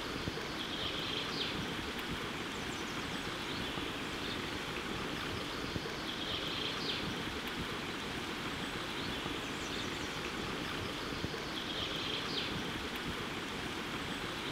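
Steady outdoor ambience: a constant rushing noise like a flowing stream, with a short high-pitched call recurring three times about five seconds apart.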